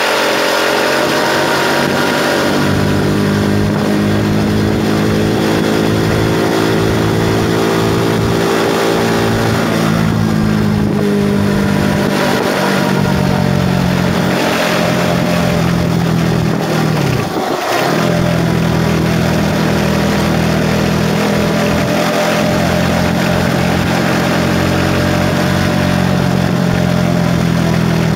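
KTM RC 390's single-cylinder engine running under way, its pitch drifting gently with the throttle, with a brief dip in revs about two-thirds of the way through. Wind rushes over the microphone.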